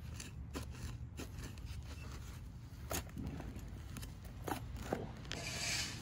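Hand trowel digging and scraping through loose potting soil and roots in a plastic pot: irregular scrapes and ticks, with a longer scrape near the end.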